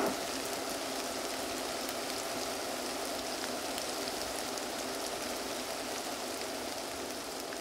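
Steady rain-like hiss with faint scattered crackles, beginning as the music cuts out and slowly fading.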